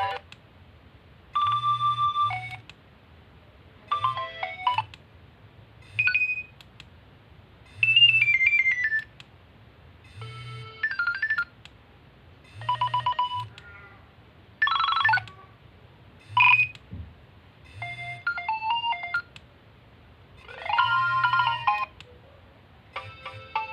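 Nokia 2300 polyphonic ringtones playing through the phone's small speaker: about a dozen short snippets of different tunes, each a second or so long, broken off one after another with brief gaps between them. A low buzz sounds under each snippet.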